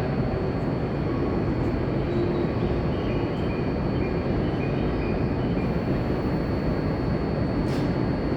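JR East E5 series Shinkansen train moving out of the station: steady, even running noise, with a faint high whine for a few seconds midway.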